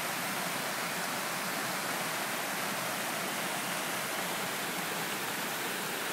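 A small creek rushing over mossy rock ledges and little cascades, a steady rush of water.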